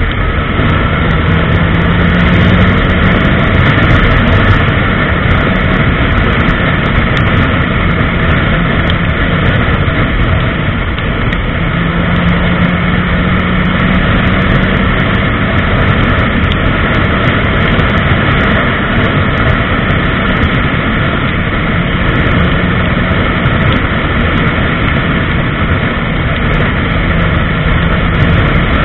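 Honda CBR1000RR's inline-four engine running steadily at highway cruising speed, mixed with loud, steady wind rush on the onboard microphone.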